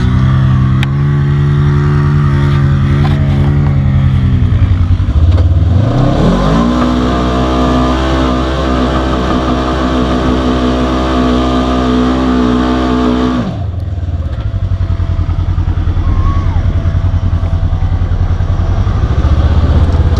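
Polaris RZR side-by-side engine running hard: the revs sag, then climb sharply about five seconds in and hold high and steady for about seven seconds, before dropping suddenly to a lower, pulsing rumble.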